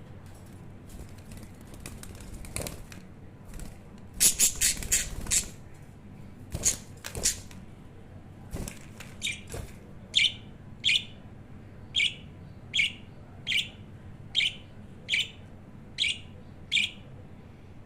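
Agitated pet budgie in a cage: a quick flurry of wing-flapping about four seconds in, then from about ten seconds a steady series of short, sharp, high calls, roughly one every second.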